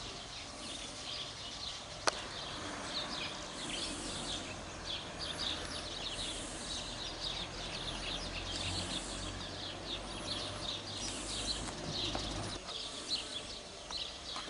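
Small birds chirping and singing outdoors: a steady stream of short high notes. A low wind rumble on the microphone swells in the second half and drops away a little after 12 seconds, and there is one sharp click about two seconds in.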